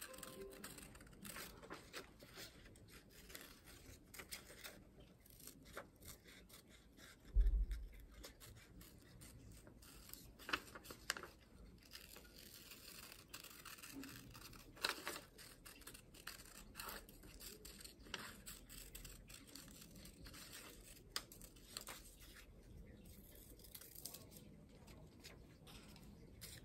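Scissors snipping through a sheet of paper in quiet, short, irregular cuts as a curved outline is cut out. One dull low thump about seven seconds in.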